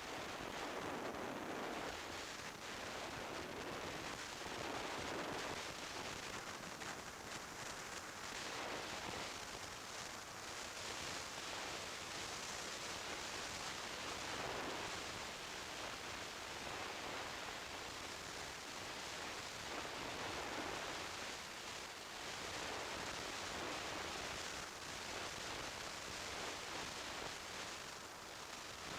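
Wind rushing over the microphone of a motorcycle-mounted camera while riding, a steady hiss that swells and eases a little, with no clear engine note.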